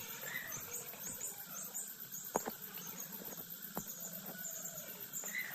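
Chickens chirping and peeping in many short, very high notes repeating throughout, with a few lower calls and two sharp clicks partway through.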